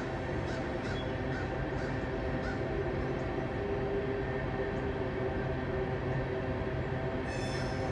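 Diesel locomotives of a coal train running as the train rolls by: a steady engine drone of several held tones. Crows caw faintly in the background.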